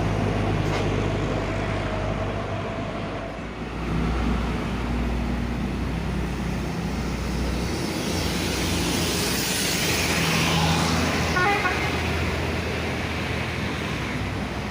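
Road traffic: heavy vehicle engines running low and steady, with one vehicle passing close and loud from about eight to eleven seconds in.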